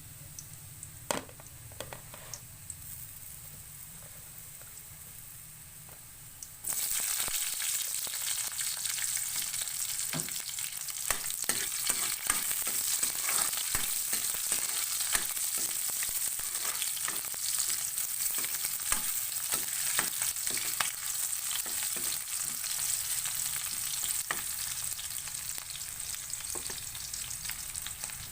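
A few light knocks, then about seven seconds in food hits hot oil in a pan with a sudden loud sizzle that carries on steadily, broken by frequent clicks and scrapes of a spatula stirring.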